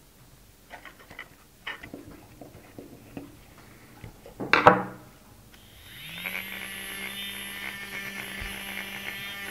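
Several light plastic clicks and one louder knock as the stirrer's case is screwed shut, then the small DC motor of a battery-powered Nescafé coffee stirrer starts about six seconds in, rising quickly in pitch and settling into a steady whirring hum as it spins the whisk. It still carries a slight extra noise that the owner puts down to a black plastic sleeve on the shaft.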